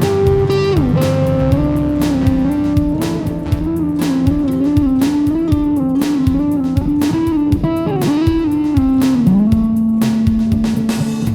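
Rock band playing: a sustained lead line, most likely electric guitar, slides down about a second in, wavers and bends through the middle, and settles on a held note near the end, over bass and steady drum hits.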